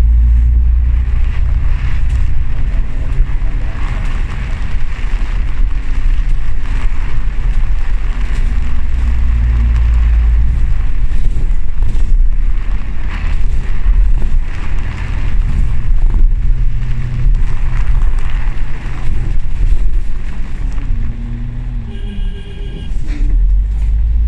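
Diesel engine and road noise heard from inside a double-decker bus under way, with frequent light knocks and rattles from the cabin. Near the end the engine note eases and shifts in pitch, and a brief high tone sounds.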